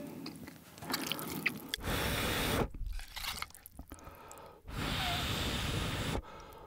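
Thick ramyeon noodles slurped into the mouth twice, each slurp lasting about a second. Faint clicks of chopsticks against a small metal bowl come first.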